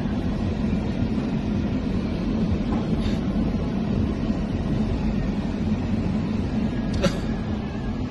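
Car cabin noise while driving: a steady low engine and road rumble, with one sharp click near the end.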